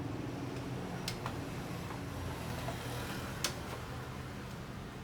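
A few sharp clicks as a power plug and cord are handled, the loudest about three and a half seconds in, over a steady low hum.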